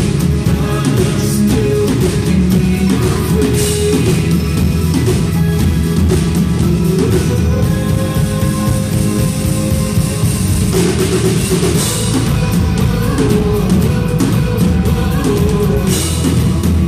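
Live worship band playing an instrumental passage, drum kit and guitars together at a steady, loud level.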